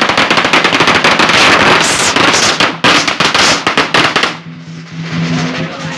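A string of firecrackers going off in a rapid, dense crackle of sharp bangs, which stops about four seconds in.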